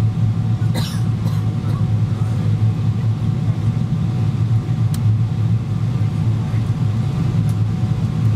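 Cabin noise of a Boeing 777-200ER on approach: the steady low rumble of its GE90 engines and the airflow, heard from a window seat. A few small clicks or rattles come about a second in, and one sharp click about five seconds in.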